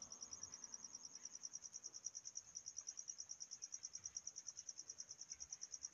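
Faint cricket chirping: a high, even, fast pulse of about eight chirps a second, steady throughout.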